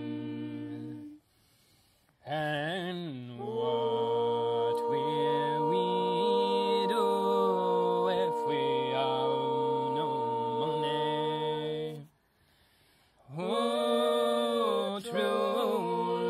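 Several voices singing a cappella in harmony, holding long drawn-out notes of a slow folk song, with a short break about a second in and another near the end.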